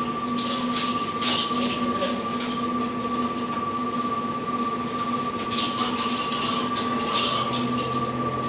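Steady mechanical hum with a high whine and a lower drone, with short hissing bursts now and then.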